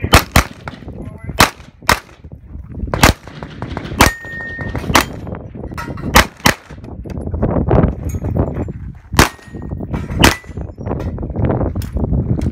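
Pistol fired about a dozen times in uneven groups of one and two shots. One shot about four seconds in is followed by a brief ringing tone.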